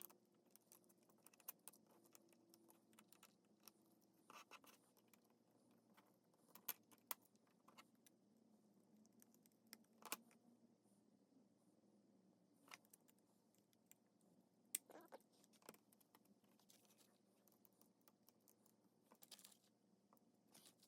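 Near silence broken by faint, scattered clicks and scratches of small smartphone parts and tools being handled and fitted.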